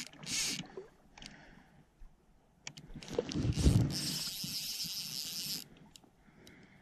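Fly reel's click drag ratcheting for about a second and a half, a little past the middle, while a trout is on the line. Before it come a few knocks and rustles of handling the rod.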